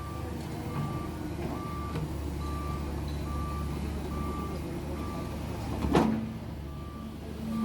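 Heavy machinery engine running steadily under a reversing alarm that beeps about once a second. There is a sudden loud bang about six seconds in.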